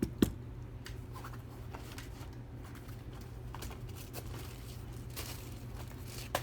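Small handling sounds from a padlock and hand tools: a sharp click or knock about a quarter second in, then scattered faint clicks and rustles over a steady low hum.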